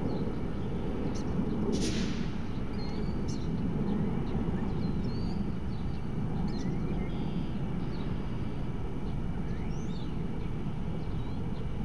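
Steady low rumble with small birds chirping on and off. A short hiss comes about two seconds in.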